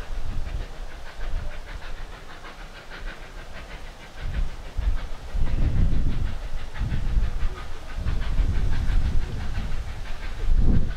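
Steam locomotive approaching from a distance, with steam hiss and a quick, regular string of exhaust beats. Heavy low rumbling swells in about four seconds in and stays the loudest sound.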